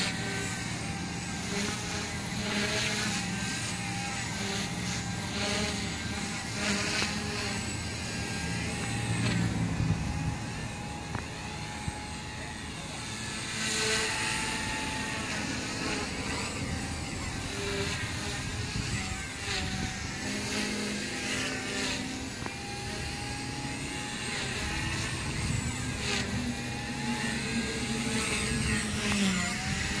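Align T-Rex 150 micro electric RC helicopter in flight, a whine from its motors and rotors that rises and falls in pitch as it manoeuvres. Wind gusts on the microphone.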